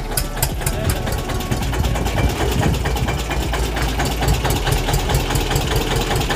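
Tractor engine idling with a rapid, even knocking beat and a steady low drone.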